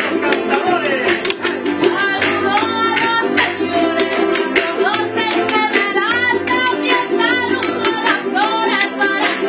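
Son jarocho played by a group of strummed jaranas, with voices singing over them and sharp percussive strikes keeping a fast rhythm throughout.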